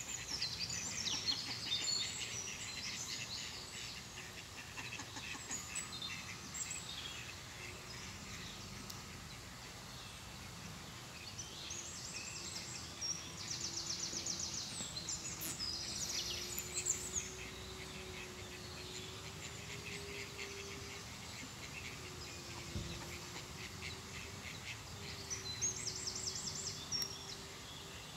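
Outdoor ambience: small songbirds chirping and trilling in short bouts over a steady low background noise, with a faint wavering hum coming in from about halfway through.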